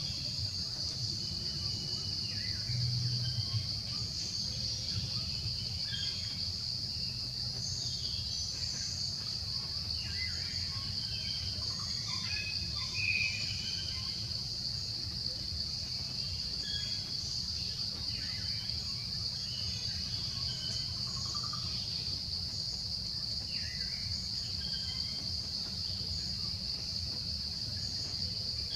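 Outdoor ambience dominated by a steady, high-pitched drone of insects, with scattered short chirps over a low steady hum.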